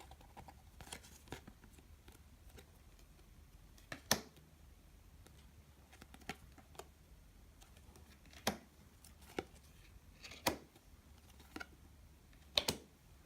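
Glossy Donruss Optic trading cards being flipped and slid through by hand: a handful of sharp clicks and snaps at irregular intervals over faint room noise.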